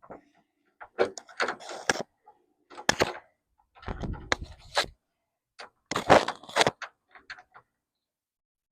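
Hand tools and bolts clicking and knocking against a car door while the door-handle fasteners are worked loose, with a few heavier thunks.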